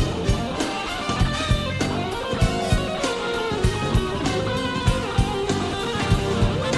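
Jazz-fusion band playing live: an electric guitar leads over electric bass, keyboards and a drum kit keeping a steady beat.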